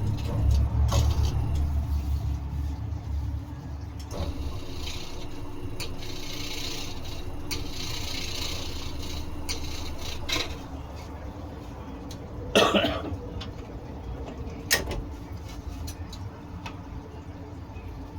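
Scroll saw running with a low hum that fades after the first few seconds, followed by scattered light clicks and two louder knocks later on.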